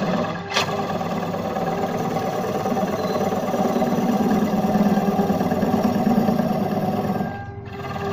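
Belt-driven wood lathe running with a steady motor hum while a long hand-held turning tool cuts into a spinning wooden disc, a rough cutting noise that grows louder in the middle and dips briefly near the end. A sharp click sounds about half a second in.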